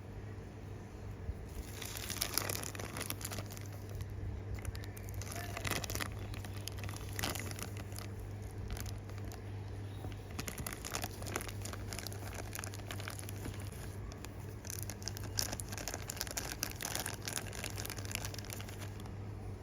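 Crinkling of plastic packaging with small irregular clicks and taps as tiny plastic miniature snack containers are handled and unwrapped, starting about a second and a half in.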